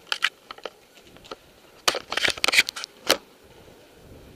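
Airsoft gunfire indoors: a few single sharp cracks, then a rapid burst of clacking shots and hits about two seconds in, and one last crack just after.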